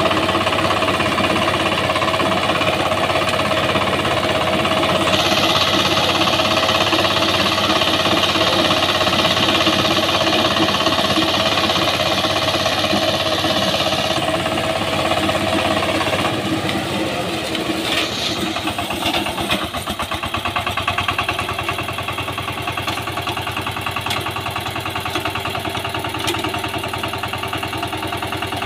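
VST Shakti 130 DI power tiller's single-cylinder diesel engine running as its rotary tines churn soil. A harsher hiss rides over it for several seconds in the first half. About two-thirds of the way through the engine speed drops, and it runs on slower with each firing beat audible.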